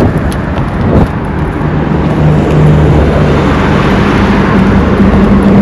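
Road traffic: a motor vehicle's engine running close by over a steady wash of road noise, its hum stepping up in pitch about four seconds in.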